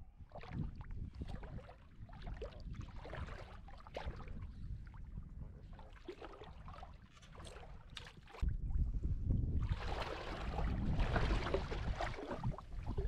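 Wind rumbling on the microphone, with scattered small splashes and knocks of water around a wading angler. The wind rumble turns much louder about eight and a half seconds in.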